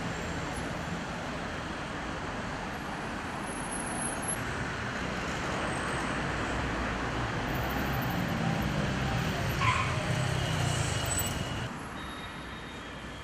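Steady city road traffic noise, a wash of passing cars that swells louder for a few seconds past the middle, then drops to a quieter hum near the end.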